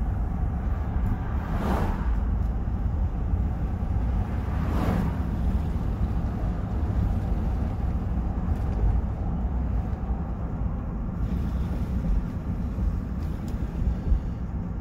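Road and engine noise inside a moving vehicle's cabin: a steady low rumble, with two brief swells of rushing noise about two and five seconds in.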